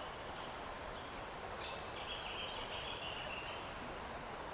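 Steady rush of a flowing stream, with a bird's warbling call over it from about a second and a half in to past the middle.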